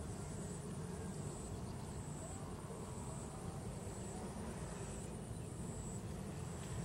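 Faint field ambience: a low steady rumble under an insect's thin, high-pitched trill that comes in short phrases about once a second.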